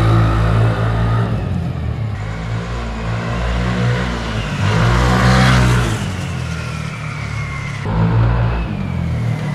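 Yamaha NMAX V1 scooter, single-cylinder with a CVT fitted with a modified (kalkal) pulley, riding up the street and passing close by. It is loudest about five seconds in, then its pitch falls as it pulls away.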